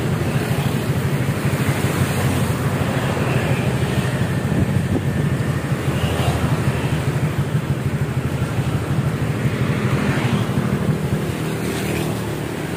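A steady, low engine rumble with fast, even pulsing, from an engine running nearby. A couple of faint clicks sound in the middle and near the end.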